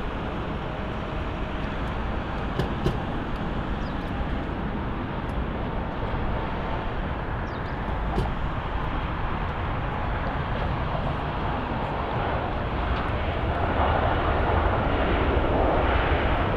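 Airliner jet engines running, a steady broad noise with a faint thin whine, growing louder near the end.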